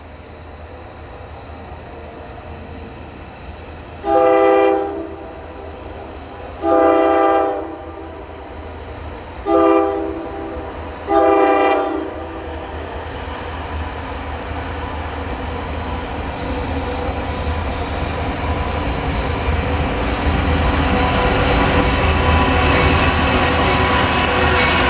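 Diesel freight locomotive's five-chime Nathan K5HL air horn sounds four blasts, the last two shorter than the first two. Then the train's rumble builds steadily as it nears, with metallic wheel squeal and hiss rising in the last several seconds.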